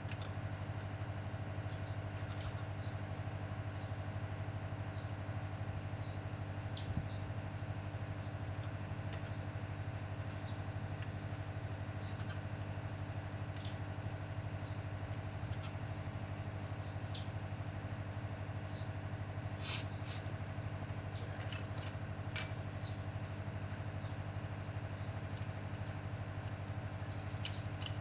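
Steady low machine hum with a thin high whine above it. Short high chirps are scattered throughout, with a few light clicks, most of them in the second half.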